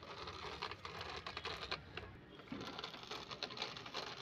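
Plastic toy truck pushed by hand, its plastic wheels rolling and rattling over a wooden plank with many light, irregular clicks.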